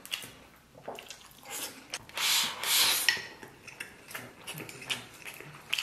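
Wooden chopsticks clicking and scraping against a metal plate as rice pilaf is scooped up. There are two longer scrapes about two to three seconds in.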